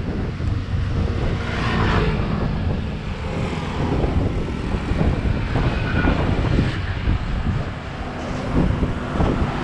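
A steady low engine drone, with a few short knocks over it.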